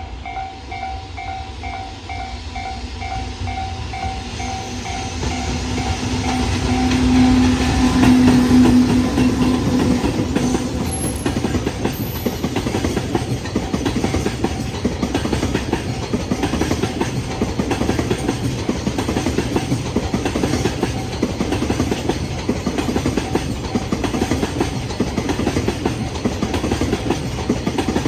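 Freight train passing over a level crossing, its wagon wheels clattering hard over the rail joints in a fast, continuous rhythm that swells to full loudness about eight seconds in. A level-crossing warning bell rings in a regular beat at first and fades under the train noise.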